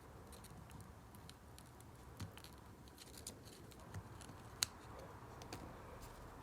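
Faint scattered clicks and light scrapes of a soldering iron tip working against a metal bullet connector, with one sharper click about four and a half seconds in.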